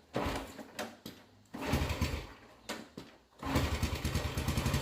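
1979 Honda CT90's small single-cylinder four-stroke engine being kicked over and firing in a few scattered, uneven bursts, then catching about three and a half seconds in and running steadily. It is starting on a freshly rebuilt aftermarket Chinese carburetor.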